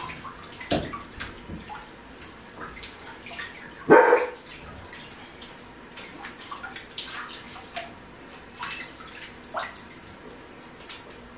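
Water dripping and splashing into a bathtub from a soaking-wet goldendoodle puppy held up over it. A single short, loud puppy cry about four seconds in.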